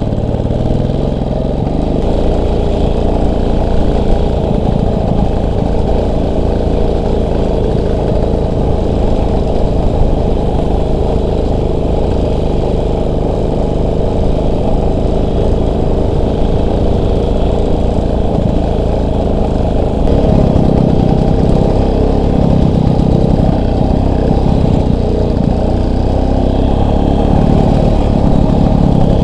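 Motorcycle engine running steadily under way, with a slight change in its note about two-thirds of the way through.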